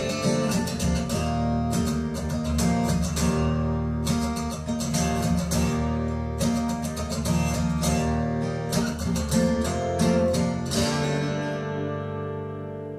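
Acoustic guitar music played back through Triangle Borea BR03 BT powered speakers: steady strumming, then a last chord about 11 seconds in that rings on and fades out as the song ends.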